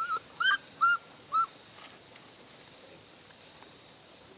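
Baby monkey giving four short, high, arched coo calls in quick succession in the first second and a half, over a steady high insect buzz.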